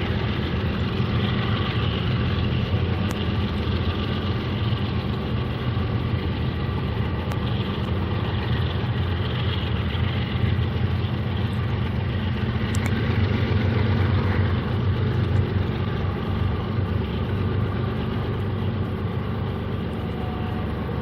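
Diesel locomotive engines running steadily, a continuous low hum with a rumble over it and a few faint clicks.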